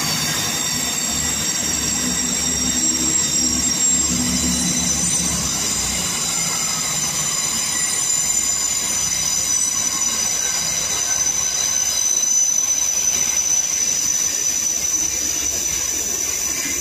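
A Networker Turbo diesel multiple unit pulling away, its engines' low rumble fading after about six seconds as it draws off, while a steady high-pitched squeal comes from its wheels on the curving track.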